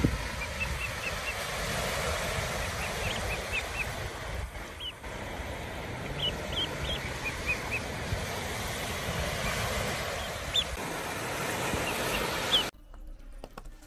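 Young ducklings peeping in many short, high calls over a steady rush of surf from waves breaking on the beach. The sound drops away suddenly near the end.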